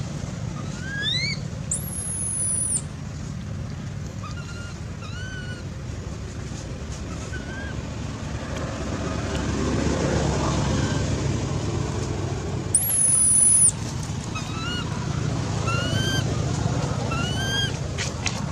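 Repeated short, rising, squeaky animal calls over a steady low background rumble, with two long, very high-pitched whistling tones, one about two seconds in and one near the middle, each lasting about a second.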